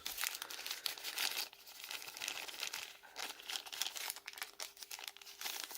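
Packaging crinkling and rustling in the hands, a dense run of irregular, crackly clicks while a lathe tool holder is taken out and turned over.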